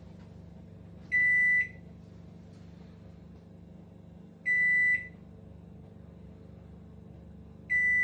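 Daewoo microwave oven beeping by itself with nobody touching it: three short, identical high beeps about three seconds apart, the last near the end. The owner suspects a fault in the electrical connection or the touch buttons.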